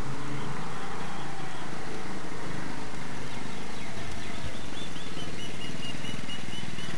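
Small motorbike engine running steadily as the mini bike rides up and passes close by.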